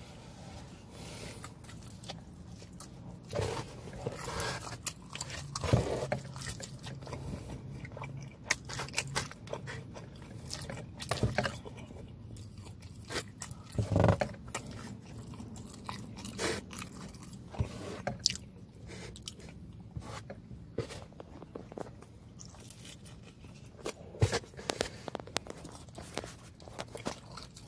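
Close-up chewing and biting of pepperoni pizza, with irregular crunches and wet mouth sounds, over a faint low steady hum.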